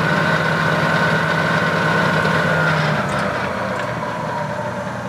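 Clausing variable-speed lathe running under power, its motor and drive hum steady at first, then dropping and fading about three seconds in as the spindle speed is cranked down from 400 RPM toward about 50 RPM.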